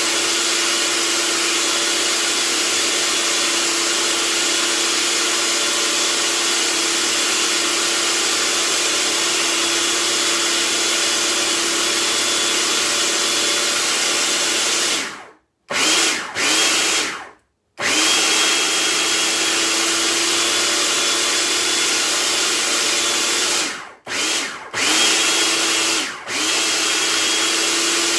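Food processor motor grinding a thick chickpea falafel mixture, a loud grinding noise. It runs steadily for about fifteen seconds, then is stopped and restarted several times in short pulses, its whine rising each time it spins back up.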